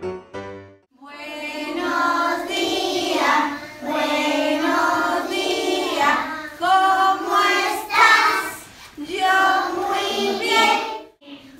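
A group of young children singing a song together in unison, with a woman's voice among them. A short bit of piano music stops in the first second before the singing starts.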